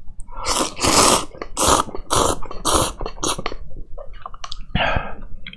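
A person slurping instant noodles from a cup with chopsticks: a quick run of loud, hissy slurps over the first three seconds or so, then one more near the end.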